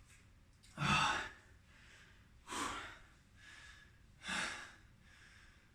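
A man breathing hard from the exertion of typewriter push-ups: three heavy exhales about a second and a half apart, the first with a slight voiced grunt, and softer inhales between them.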